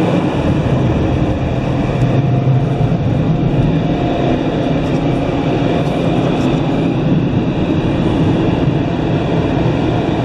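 Laserwash G5 car wash's air dryer blowers running at full blast, a loud, steady roar of air heard from inside the car.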